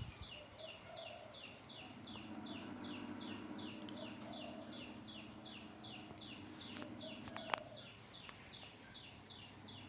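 A bird chirping over and over, short falling notes repeating evenly at about three a second, with a faint low hum beneath for a few seconds and a sharp click about seven and a half seconds in.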